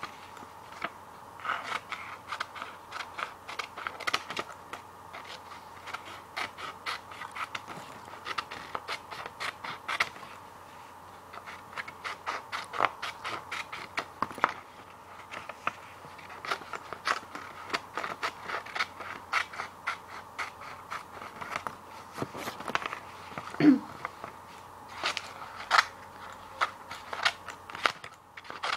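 Scissors cutting paper: a long run of short, crisp snips at an uneven pace, easing off briefly about a third of the way in. One louder knock comes a little past two-thirds of the way through.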